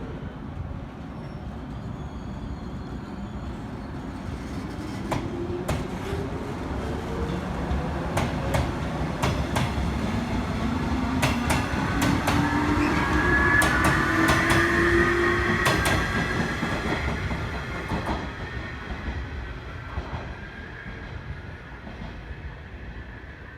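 JR East 719 series electric train pulling away, its inverter and traction motor whine rising steadily in pitch as it accelerates. Rail-joint clicks come in a quickening series, and the sound swells as the cars pass, then fades. The rear set gives off a jet-like noise, an abnormal sound from that unit.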